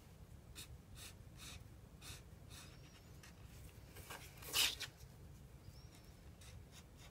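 Faint scratching of a Copic Ciao alcohol marker's tip stroking on paper, short strokes about two a second, over a low steady hum. About four and a half seconds in comes one louder brief swish.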